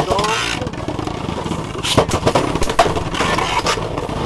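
3D-printed Beyblade tops spinning in a plastic stadium with a steady scraping whir, clashing sharply several times from about two seconds in.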